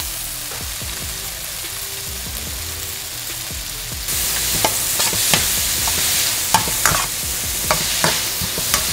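Diced vegetables and chili crunch sizzling in a hot wok while being stir-fried. About four seconds in the sizzle grows louder, and a metal spatula starts scraping and clicking against the wok as the vegetables are tossed.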